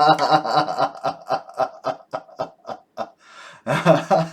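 Philips Sonicare DiamondClean toothbrush's sonic drive buzzing in a rapid train of short pulses, about five a second, that fade over a few seconds, then a louder, longer buzz near the end. The brush has just been switched on after the repair.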